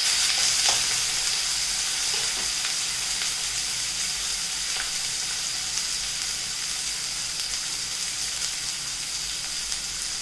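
Sliced onions and whole spices sizzling in hot oil in an aluminium kadai over a high gas flame, with a few scrapes of the spatula in the first couple of seconds. The steady sizzle eases slightly as it goes on.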